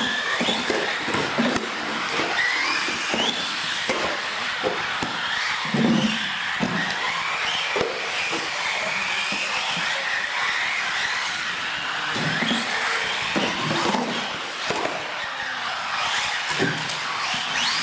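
Radio-controlled UTV models racing on a concrete floor: their motors whine, rising and falling in pitch with the throttle, over steady tyre noise. Scattered thumps several times, about 6, 12, 14 and 17 seconds in.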